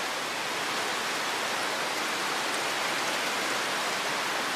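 Steady rain, an even hiss that stays level throughout.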